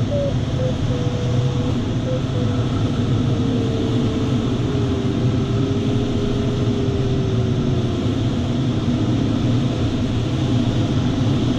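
Steady rush of airflow inside a sailplane's closed cockpit, with the variometer's audio tone sounding faintly above it. The tone beeps briefly at first, then slides slowly lower in pitch, which signals weakening lift, and fades about eight seconds in.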